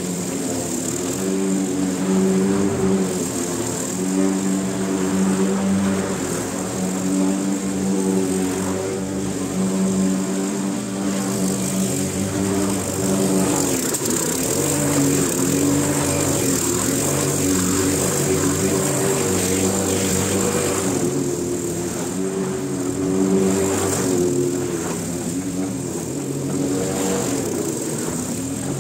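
Walk-behind petrol lawn mower engine running steadily while cutting grass, its note dipping briefly a few times as it works.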